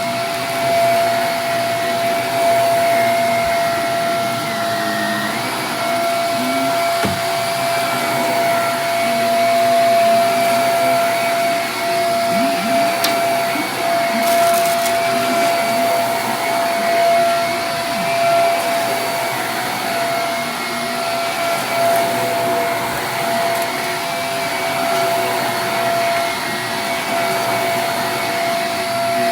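Vacuum cleaner running steadily with a constant whine, with a couple of brief clicks about halfway through.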